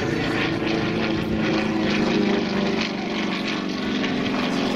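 Sukhoi Su-26 aerobatic plane flying overhead, its nine-cylinder radial engine and propeller giving a steady, loud drone.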